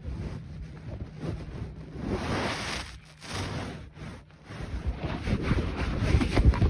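Wind noise buffeting a phone's microphone in uneven gusts, rumbling, dropping away briefly twice and growing louder in the second half, with short knocks and rustles mixed in.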